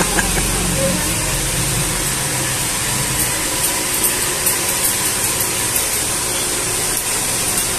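Handheld hair dryer running steadily, an even rush of air with a faint motor whine.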